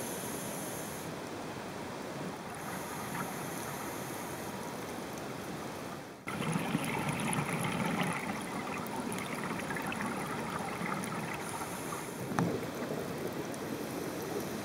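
Underwater sound through a diver's camera: a steady rushing hiss with the low rumble and crackle of scuba bubbles. There is a brief dip about six seconds in, and after it the rumble is louder.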